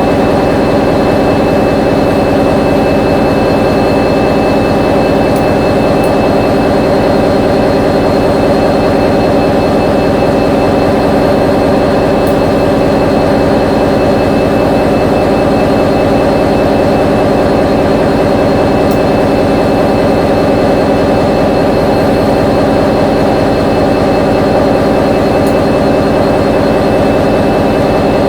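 KiwiRail diesel-electric locomotive engine running loud and steady at a constant speed, with a deep, even drone that neither rises nor falls.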